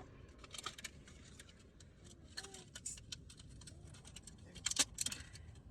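Candy wrappers being handled and opened: a scatter of short, faint crackles and crinkles, busiest in a quick cluster near the end.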